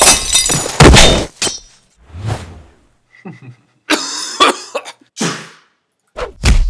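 Fight sound effects: glass shattering amid heavy blows in the first second or so, then scattered thuds and hits, and two more loud blows near the end.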